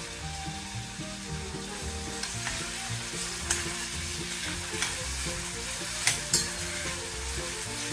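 Rehydrated dried porcini mushrooms sizzling in hot olive oil with golden garlic in a stainless steel pan. A metal spoon stirs them and clinks against the pan a few times, around the middle and again a little past it.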